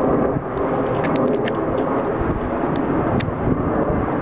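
Twin-engine jet airliner flying overhead, its engines giving a steady, loud noise.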